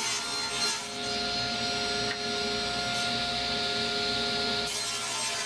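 Electric power saw running and cutting wood: a steady motor whine over the hiss of the blade in the wood.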